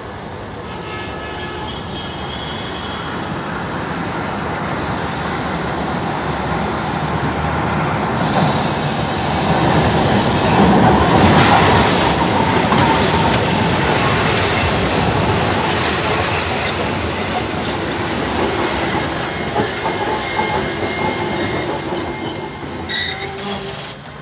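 Alexandria Raml tram pulling into the station right alongside. Its rumble grows louder over about ten seconds as it comes in, and from about halfway there are high-pitched wheel squeals as it slows.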